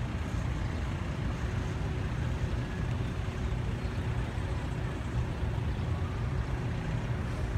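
Steady low outdoor rumble with no distinct events, and a faint steady hum through most of it.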